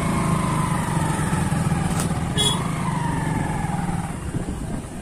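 Motorcycle engine running steadily while riding, dropping off about four seconds in as the bike slows.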